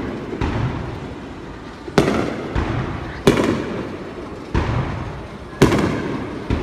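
Aerial firework shells bursting overhead: about six loud booms, roughly one a second, each trailing off in a rolling rumble.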